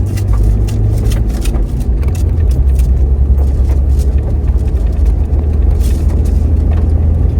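Vehicle driving, a loud steady low rumble with scattered rattles and clicks over it.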